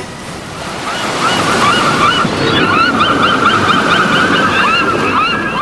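Ocean waves washing on a shore, with many short, high bird cries over them from about a second in.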